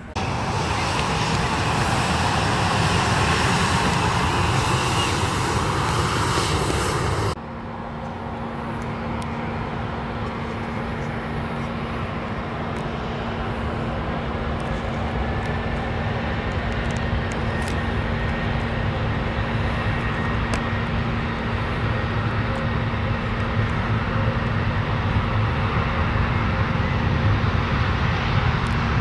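Jet airliner engines at high power on the runway, loud and even, cut off suddenly about seven seconds in. Then a Boeing 737's twin turbofan engines with a steady low hum and a noise that grows slowly louder as the jet rolls down the runway on its takeoff run.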